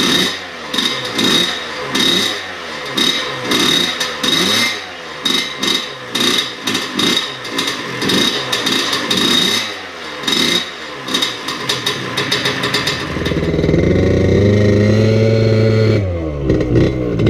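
Small 86cc big-bore scooter engine running, revved in a quick series of throttle blips about once a second, then held at higher revs for a few seconds. Near the end the scooter is ridden and the engine labours, struggling to pull away. The owner takes this for a carburettor jetted way too rich.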